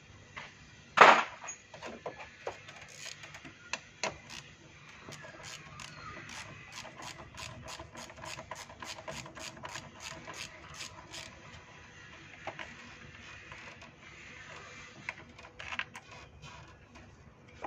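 A hand ratchet clicking in a long, even run of strokes as a 10 mm bolt is backed out, after one sharp knock about a second in; the clicking grows fainter toward the end.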